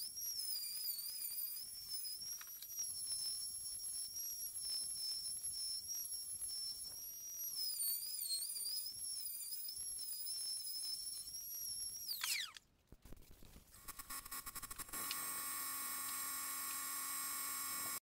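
Compact trim router running at high speed with a steady high whine that wavers slightly under load as its bit recesses the MDF speaker baffle. About twelve seconds in, the motor is switched off and the whine falls away as it spins down. After a short pause, a different steady, evenly pitched hum runs to the end.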